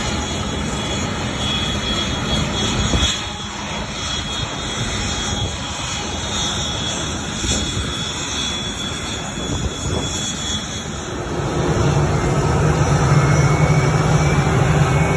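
Jet airliner engines running at taxi power as aircraft roll past, a steady rushing noise. About twelve seconds in it grows louder, with a strong low hum and a faint rising whine.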